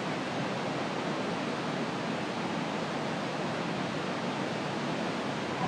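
Steady rushing roar of a waterfall, an even hiss of falling water with no breaks.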